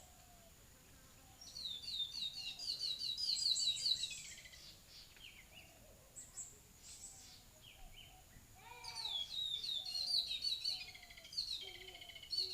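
A songbird singing two long phrases of rapid, repeated high chirps, the first about a second and a half in and the second from about eight and a half seconds, over a faint steady high-pitched tone.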